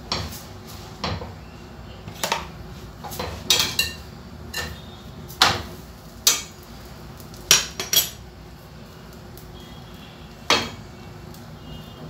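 A metal spoon clinking and scraping in a stainless steel frying pan while a chapati is laid in and cooks: about a dozen sharp, irregular clinks and knocks, a few ringing briefly.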